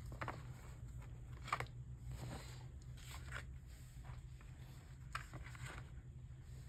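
Faint rustling and light clicks of glossy photo cards and album paper being handled and sorted, in several short separate bursts about a second apart, over a low steady hum.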